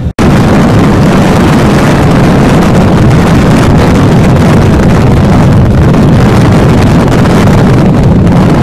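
Loud, steady wind buffeting on the microphone of a camera riding on a moving trike motorcycle, with a low rumble underneath.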